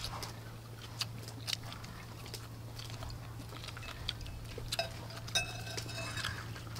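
Quiet chewing and small mouth clicks from people eating grilled corn on the cob, over a low steady hum. A brief pitched sound comes a little after five seconds in.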